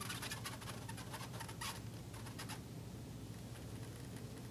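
Marker writing on a glass lightboard: a quick run of short scratchy strokes for the first two and a half seconds or so, then sparser and fainter.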